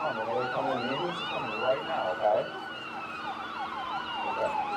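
Several emergency-vehicle sirens sounding at once: fast yelping sweeps over slower wails, with one long tone falling steadily in pitch.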